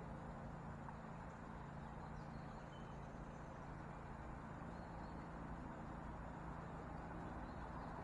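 Faint, steady outdoor background: a low hum under a soft hiss, with a few faint, short, high chirps scattered through.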